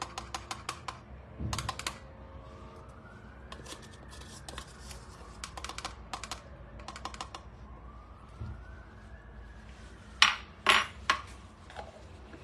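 Quick, light clicking and tapping of a metal measuring spoon against a container while a teaspoon of baking powder is scooped, then three sharp knocks near the end as the spoon is tapped and set down.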